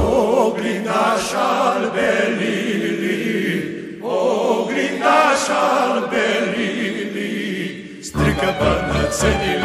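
Romanian folk band playing an instrumental passage: a lead melody with heavy vibrato and no bass underneath, until the bass and fuller accompaniment come back in about eight seconds in.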